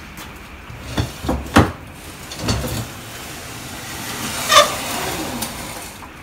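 Top-loading kiln's hinged lid being lowered and shut: a few knocks, then a louder metallic clunk with a short ring about four and a half seconds in.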